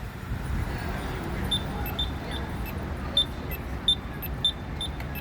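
Accessible pedestrian crosswalk push button sounding short, high-pitched beeps, about six at uneven spacing, over a steady low rumble of street traffic.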